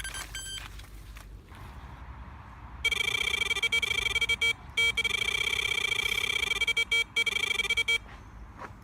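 Electronic carp bite alarm sounding in a near-continuous high tone for about five seconds, starting about three seconds in, with a few brief breaks: a carp taking line on a run.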